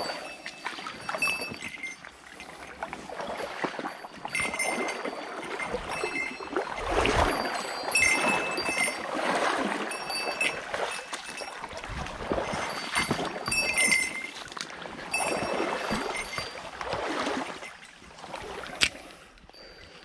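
Water splashing and sloshing around a person moving in a shallow river, in uneven surges every second or two. There is a single sharp click near the end.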